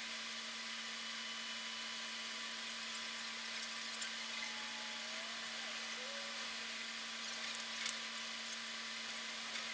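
Steady electronic hiss with a constant low hum and a few brief clicks about halfway through and near the end: recording noise, with no sound from the scene itself.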